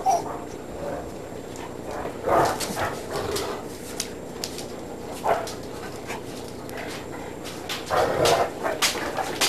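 Dogs vocalizing as they play-wrestle: short separate bursts of dog sounds, the loudest a little over two seconds in and again about eight seconds in, with a few sharp clicks between. The dogs are Great Dane puppies and a Cirneco dell'Etna.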